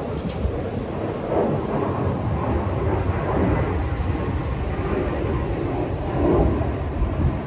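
A loud, continuous low rumble with no clear tone or rhythm.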